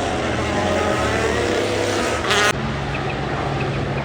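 Rally car engine running hard on a stage with the pitch shifting as it passes. A brief loud crackling burst comes just after two seconds in, then the sound switches abruptly to a steadier engine note.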